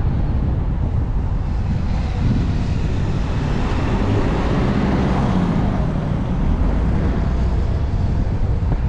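Wind buffeting the microphone, with an engine passing by that swells to a peak around the middle and fades away.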